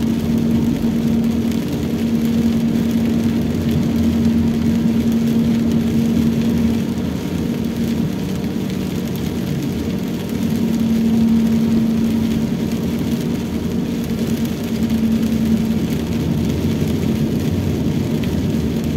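Steady cabin noise of a Toyota Rush driving on a wet road: engine hum and tyre noise. A low drone swells and fades a few times.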